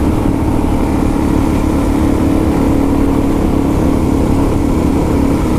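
Motorcycle engine running steadily at an even cruising speed, heard from on the bike itself.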